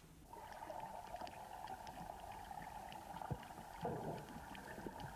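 Faint underwater ambience: a steady, muffled rushing noise with scattered soft clicks, swelling briefly about four seconds in.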